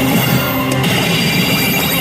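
GARO Sho pachislot machine playing its loud, dense game music and effects for a confirmed winning role, with a sudden change in the sound about three-quarters of a second in.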